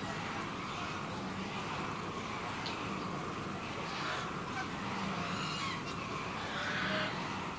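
A swan goose bathing in a shallow pool, dipping its head and splashing water over its back in repeated splashes. Birds call in the background.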